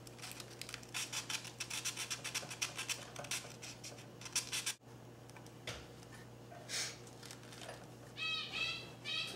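Steel flybar rod of an RC helicopter rubbed back and forth through folded sandpaper, in quick scratchy strokes several times a second, smoothing the nicks left by the set screw so the bent rod can slide out. About halfway the strokes stop, and then a few slower single strokes follow.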